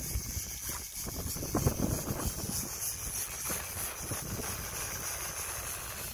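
Wind buffeting the phone's microphone on an open boat at sea, an uneven low rumble with rustling gusts.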